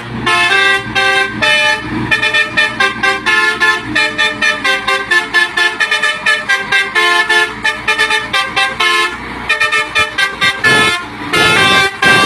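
Dump truck's multi-tone air horn tooting a fast rhythmic tune, short blasts that jump between notes several times a second.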